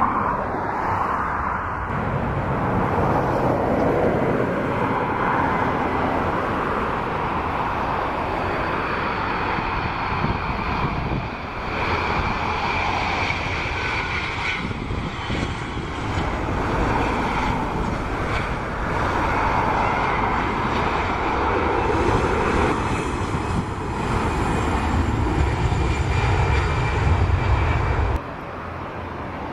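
Boeing 747 jet engines at high power as the jumbo jet takes off: a loud, steady rumble with a whine over it. A short dip about a third of the way in, and a sudden drop to a quieter engine hum near the end.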